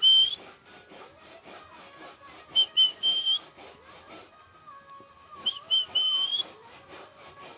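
Lovebird singing: a fast, scratchy chattering trill throughout, cut across three times by a louder whistled phrase of two short notes and a longer rising note.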